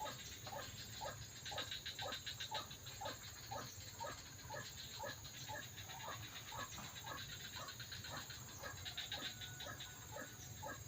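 White-breasted waterhen (ruak-ruak) calls, a short call repeated steadily about three times a second.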